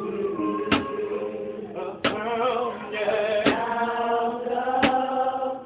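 Voices singing a praise song together, holding long sung notes, with a sharp percussive hit keeping a slow steady beat about every second and a half.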